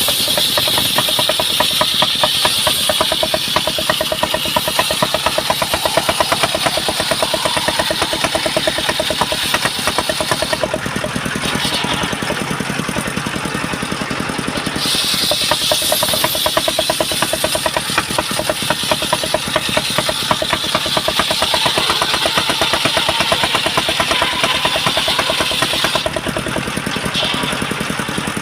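Engine-driven circular sawmill running, with the hiss of its blade cutting timber over the engine's fast, even beat. The cutting hiss stops for a few seconds about ten seconds in, then returns, and drops away again near the end while the engine keeps running.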